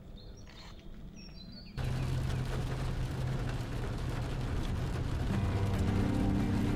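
Quiet open-air ambience, then about two seconds in a rain-and-storm soundscape sets in suddenly: a dense hiss of rain over a deep, steady rumbling drone that grows slightly louder and fuller.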